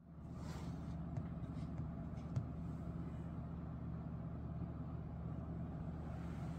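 Low steady hum of room tone, with a few faint ticks about a second or two in.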